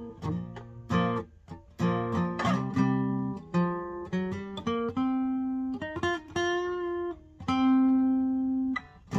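Gibson J-35 '30s Faded acoustic guitar played unplugged: a series of chords struck and picked up the neck, several left to ring for a second or more.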